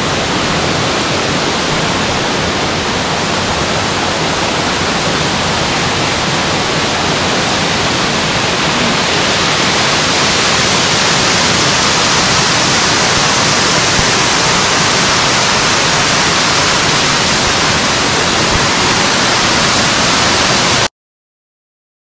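Baker's Falls waterfall: a loud, steady rush of falling water. It gets a little louder about ten seconds in and cuts off suddenly near the end.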